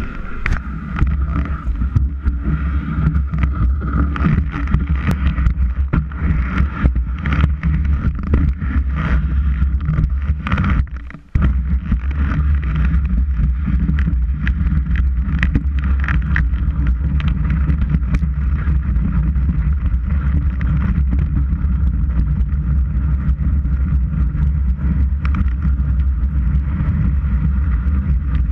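Skis sliding and scraping over snow, heard through a camera mounted on the ski boot: a steady low rumble with many knocks and clatters through the first ten seconds or so. The sound drops out for a moment about eleven seconds in, then runs on as a smoother rumble and hiss.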